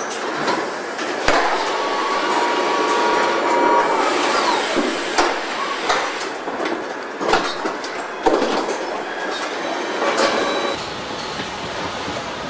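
Car assembly line machinery and industrial robots running with a steady mechanical noise, broken by about half a dozen sharp knocks and clanks. A whine comes in early and holds for a couple of seconds before falling away.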